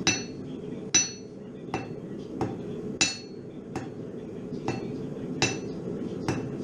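Hand hammer striking steel on an anvil at blacksmith forging: about nine blows, roughly one a second, each with a short bright metallic ring. A steady low rumble runs underneath.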